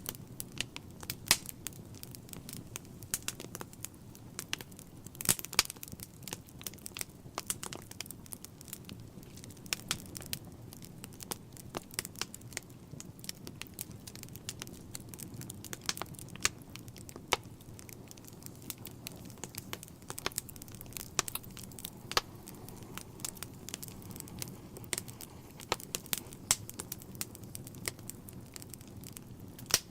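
Wood fire burning in a fireplace: irregular sharp crackles and pops from the burning logs, over a steady low rumble.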